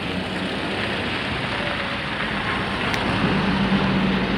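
BharatBenz sleeper coach's diesel engine running as the bus moves slowly at low speed, a steady rumble whose low hum grows stronger in the second half.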